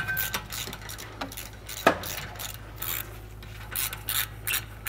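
Hand ratchet clicking in quick, uneven runs as it backs out the T50 Torx set screw that holds the rear brake rotor to the hub, the screw having just broken free. One sharper click about two seconds in.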